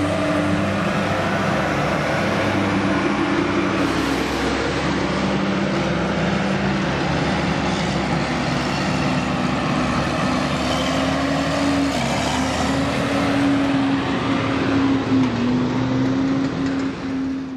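A New Holland CR combine harvester's diesel engine running as the machine drives past and on down the road, a steady drone with slight shifts in pitch over a mechanical rattle.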